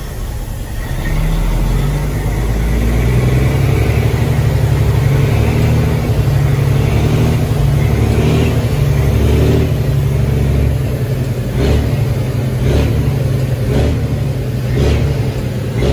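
Semi truck's diesel engine heard from inside the cab. It gets louder about a second in as the truck pulls away, runs steadily under load, then rises and falls in the last few seconds, with a few short knocks.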